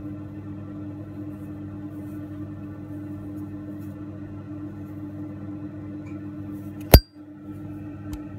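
Chrome Zippo lighter's hinged lid flipped open about seven seconds in, with a single sharp metallic clink that rings briefly, then a fainter click about a second later. A soft, steady ambient music drone plays underneath.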